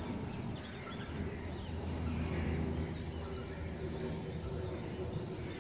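City background ambience: small birds chirping now and then over a steady low hum.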